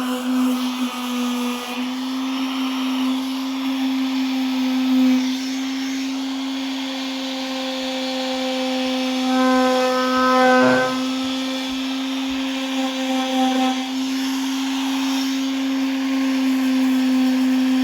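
Electric power sander running steadily against the metal of a pickup truck bed, a constant motor hum with a brief wobble in pitch about ten seconds in.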